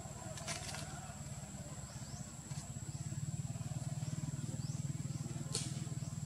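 Forest ambience: a steady high-pitched insect drone with short rising chirps every second or so, over a low pulsing hum that gets louder about three seconds in. There are two sharp clicks, one near the start and one near the end.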